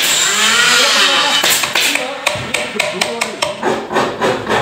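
A loud, noisy whir with a wavering pitch for about a second and a half, then a run of sharp taps and knocks, several a second, from tool work on a workbench.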